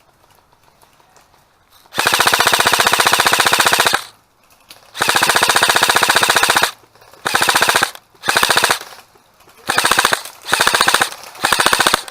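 Airsoft gun firing on full auto in rapid bursts. Two long bursts of about two seconds each come first, then five short ones, with a quiet stretch of about two seconds before the first.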